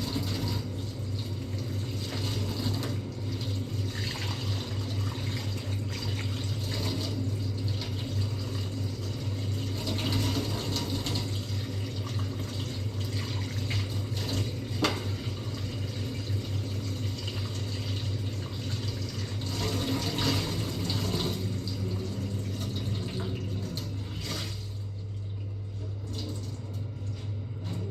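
Water running steadily, as from a tap or through pipes, over a steady low hum.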